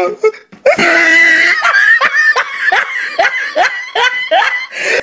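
A person laughing hard, a long drawn-out laugh and then a run of quick, high-pitched bursts of laughter, about two or three a second.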